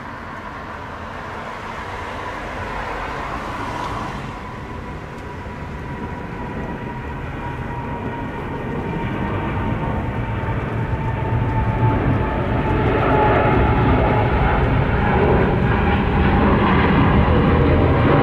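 Jet engines of a departing Boeing 777 at takeoff power, climbing out and growing steadily louder as it nears, with a steady whine that slowly drops in pitch.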